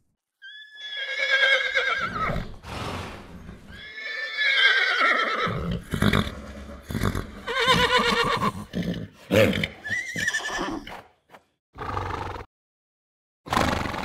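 Horses whinnying: three long neighs, each starting high and falling in pitch with a quaver, with shorter breathy sounds between them.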